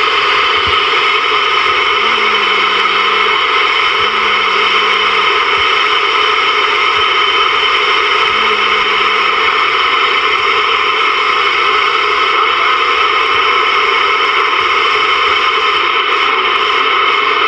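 Receiver static and hiss from a Ranger VR-9000 multimode 11-meter CB radio as it is tuned up through quiet channels with no station heard. A faint low tone comes and goes three times in the first ten seconds.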